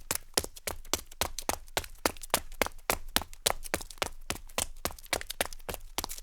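Man's leather-soled shoes stepping briskly on gritty concrete: a steady run of sharp clicking steps, several a second, with a scrape of grit under the soles.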